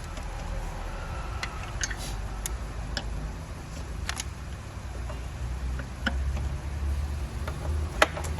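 Scattered light clicks and taps of hand tools on engine parts during intake manifold removal, over a steady low rumble, with one sharper click near the end.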